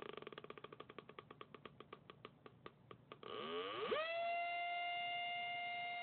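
Atari Punk Console, a two-555-timer noise synth, turned down to a low rate so it clicks, the clicks slowing over about three seconds; then its pitch sweeps up and it holds a steady electronic tone.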